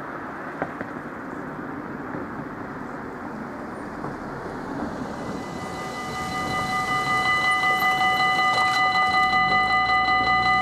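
Level-crossing warning bell starts about halfway through and rings rapidly, about four strokes a second, getting louder as it settles: the crossing is closing for an approaching train. Before it there is only steady outdoor background noise.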